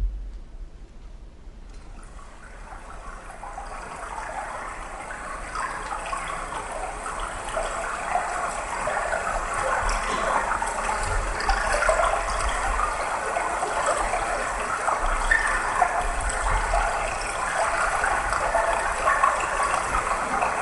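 Rushing, bubbling water sound in a performance soundtrack, swelling in over the first few seconds and then holding steady, with low thuds underneath.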